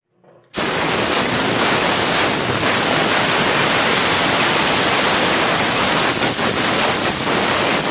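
Compressed air from a small one-gallon air compressor blasting out in a steady, loud hiss, starting abruptly about half a second in.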